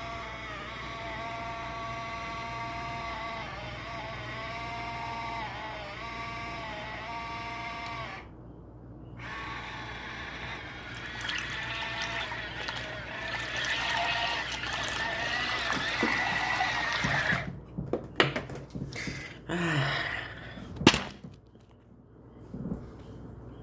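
Portable mini washing machine running in water: its small motor whines in a steady stack of tones that dips in pitch a few times, then stops about 8 seconds in. Water churns and splashes loudly for several seconds after, and a few sharp knocks and clatters come near the end as the machine is handled.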